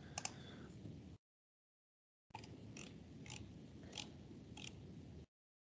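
Near silence on a video-call microphone line, cut out completely twice, with about five faint, scattered clicks of a computer mouse as the pages are navigated.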